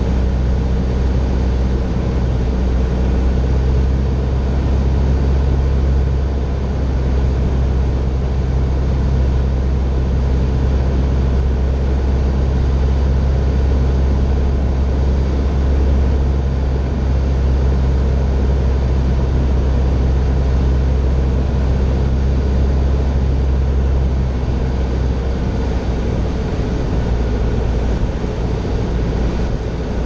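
Grumman Tiger's 180 hp four-cylinder Lycoming engine and propeller droning steadily in flight, a deep steady hum with a rushing hiss over it. The deep hum eases a little near the end.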